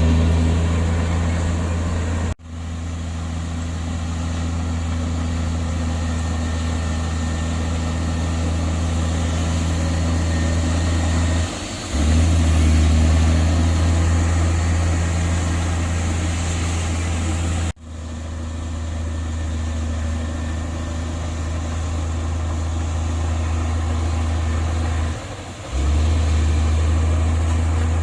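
Heavy earthmoving machine's diesel engine running steadily with a deep, even tone. The level dips briefly twice. Twice the sound breaks off abruptly and comes back slightly quieter.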